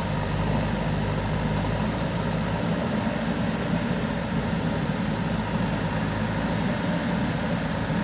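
JCB backhoe loader's diesel engine running steadily while the machine works its front loader bucket through loose soil.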